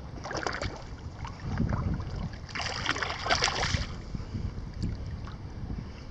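Choppy water lapping and splashing close to the microphone, with a louder splash lasting about a second near the middle, over a steady low rumble of wind on the microphone.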